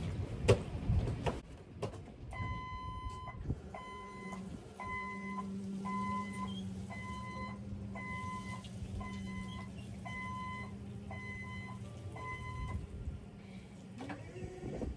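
A few knocks, then repeated electronic beeping about two beeps a second, starting with one longer tone, over a steady low hum; the beeping stops about thirteen seconds in.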